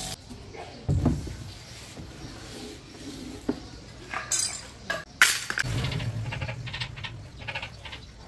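A series of irregular knocks and clicks, with a low thump about a second in and the loudest sharp knock about five seconds in, followed by a brief low rumble and a run of small clicks.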